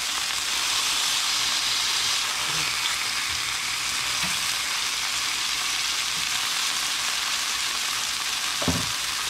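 Pieces of grouse meat frying in oil in a hot cast-iron skillet: a steady sizzling hiss. A short knock sounds near the end.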